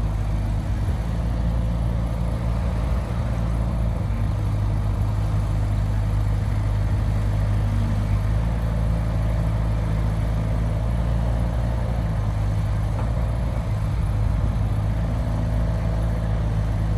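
Heavy diesel engine running steadily at low revs, a constant low drone.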